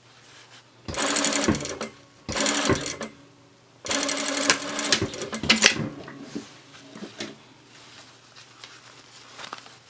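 Sewing machine stitching in three short runs, about a second, under a second and about two seconds long, each starting and stopping sharply as small fabric pieces are fed under the needle. Faint rustling of the fabric being handled follows.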